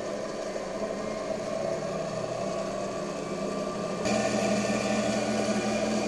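Washing-machine universal motor spinning at very high speed on a 12 V battery, its field winding disconnected so the armature alone keeps it turning. It gives a steady whir that gets louder about four seconds in.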